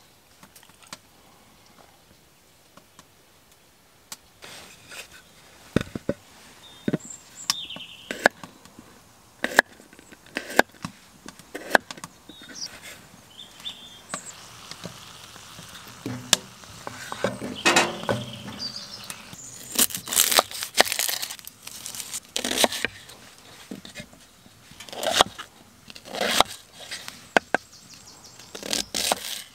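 After a few quiet seconds, rustling and handling of a sheepskin and plastic sheeting, with scattered sharp knocks and clicks. Near the end, a knife slicing a red onion and tapping on a wooden chopping board.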